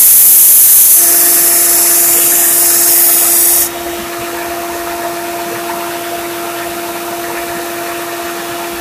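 Grizzly 1x30 belt sander grinding a steel machete edge to raise a burr: a loud, steady high hiss of blade on abrasive belt that cuts off sharply about three and a half seconds in. After that only the steady motor hum goes on.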